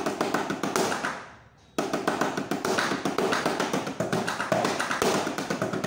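Rapid drum strokes on the rubber practice pads of a homemade wooden pad kit. A quick run lasts about a second and fades, then after a short pause a longer run of fast, even strokes follows.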